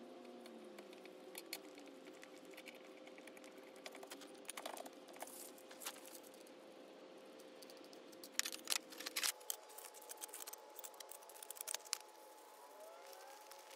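Hand tools clinking and clicking as they are picked up and handled, in scattered taps with a few quick clusters, over a faint steady tone.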